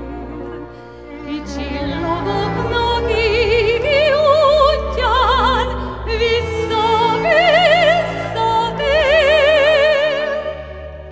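A woman singing a Hungarian nóta with wide vibrato on long held notes over an orchestra accompaniment; the music quietens near the end.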